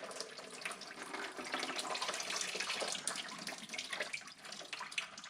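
Engine coolant pouring out of a BMW N52 radiator, a steady splashing, trickling flow of liquid that is still draining from the system.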